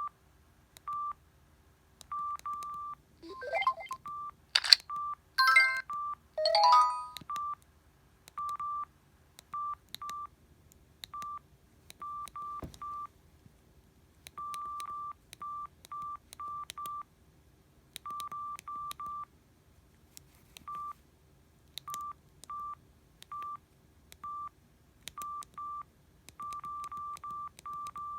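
Samsung SGH-E720 mobile phone keypad beeps: short beeps all at one pitch, irregularly spaced, many with a faint key click, as buttons are pressed. About three to seven seconds in, a few brief louder phone tones sound, the first a rising whoop.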